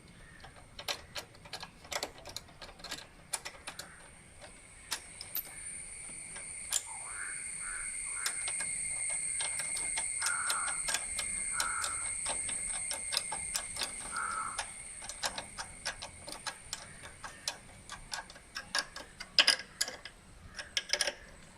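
Irregular metallic clicking and ticking of a spanner working the bolt that holds the new ignition coil and its earth wire on a motorbike. A steady high-pitched whine swells in the middle and fades again.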